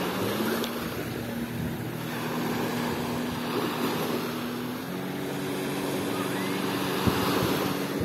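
Jet ski engine running steadily as it tows a banana boat out from shore; its note steps up slightly about five seconds in. Small waves wash on the beach and there is wind on the microphone.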